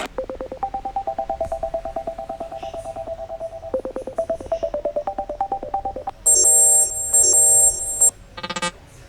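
Android 5.1 Lollipop stock ringtones playing: a fast pulsing electronic melody of short repeated notes stepping between a few pitches, then, about six seconds in, two loud sustained buzzy ring bursts, with another tone starting near the end.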